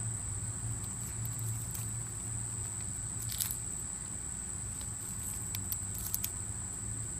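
Eastern box turtle eating a cicada: faint, scattered crunching clicks. A steady low hum and a thin high-pitched whine run under them.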